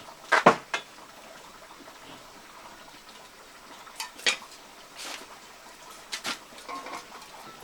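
Cooking utensils and dishes clinking and knocking against one another in scattered strokes, the loudest a cluster about half a second in, then a few single knocks spaced out later.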